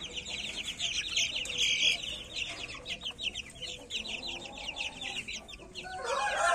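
A flock of month-old Pama chicks peeping in a cage: a continuous chatter of rapid, high, falling peeps. Near the end, a rooster starts to crow.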